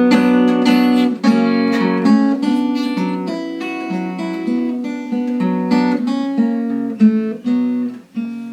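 Acoustic guitar played solo with no singing: chords strummed and picked in a steady rhythm.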